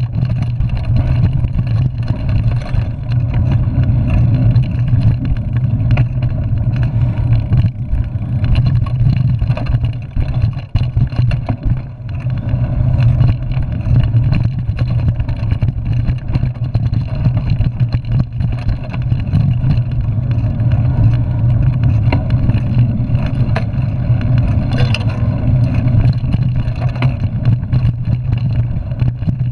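Mountain bike ridden fast over a rough dirt singletrack, heard from a camera on the handlebars: a loud, steady rumble of wind buffeting and tyre noise, with many small clicks and rattles from bumps in the trail. The rumble drops briefly about ten seconds in.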